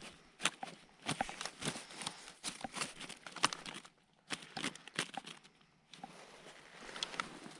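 Irregular sharp clicks, knocks and rustling of gear being handled at close range, with a quieter spell about four to six seconds in.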